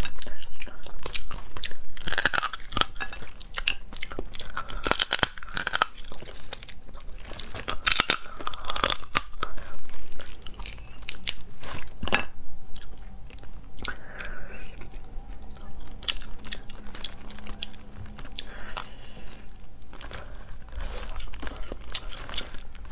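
Cooked mantis shrimp shell being cracked and peeled by hand, mixed with crunching and chewing of the meat; many sharp cracks, loudest and most frequent in the first ten seconds or so.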